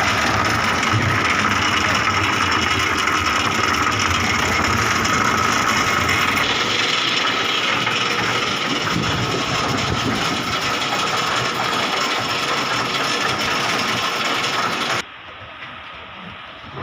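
Construction machinery running steadily, an engine-driven mechanical noise with a constant mid-pitched hum; it cuts off suddenly near the end, leaving a much quieter background.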